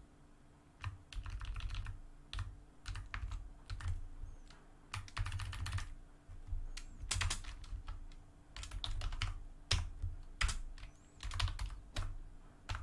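Typing on a computer keyboard in irregular runs of keystrokes with short pauses between, as a command is typed out key by key.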